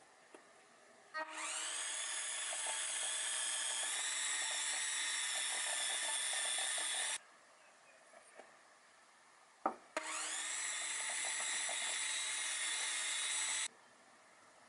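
Cordless electric hand mixer with wire beaters running in a glass bowl of batter, in two runs of about six and four seconds, each rising in pitch as the motor spins up. A short knock comes just before the second run.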